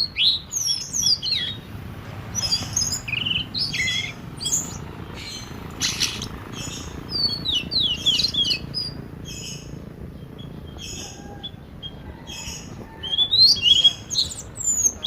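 Small birds chirping, many quick rising and falling notes in a busy, continuous stream, with a louder flurry near the end.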